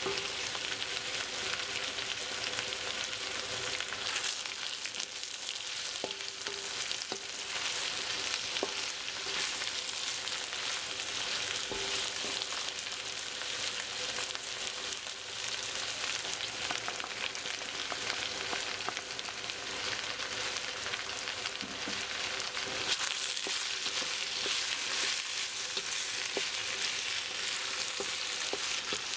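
Napa cabbage and sliced meatballs sizzling steadily in a hot stainless-steel wok, stirred with a wooden spatula that gives scattered light taps and scrapes against the metal.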